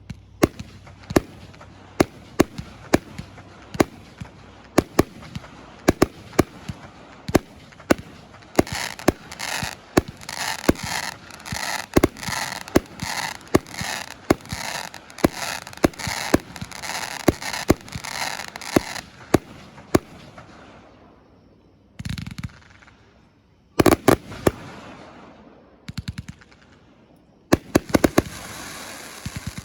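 A 284-shot consumer firework cake, Nunya's 'Wile E Coyote', firing a long run of shots with sharp bangs. The first stretch has separate reports about a second apart. From about a third of the way in comes a long stretch of dense crackling between the bangs, which dies away to a short lull. A few single bursts follow, then another crackling barrage near the end.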